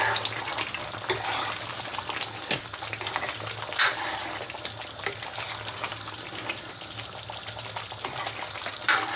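Food sizzling and crackling as it fries in hot oil in a pan, with a couple of sharper clicks about four seconds in and near the end.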